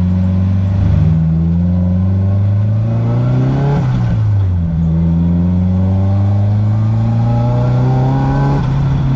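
Nissan SR20DET turbocharged four-cylinder in an S14 240SX accelerating hard through the gears: the revs climb, drop at a shift about four seconds in, climb again and drop at another shift near the end.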